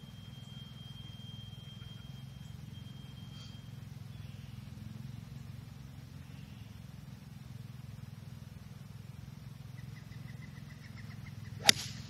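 A golf club strikes a teed-up ball in a tee shot: one sharp crack near the end, over a steady low rumble.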